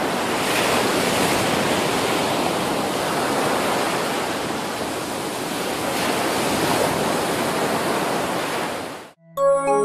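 Ocean surf: a steady rush of waves washing and breaking, swelling and easing slightly. It cuts off near the end and music begins.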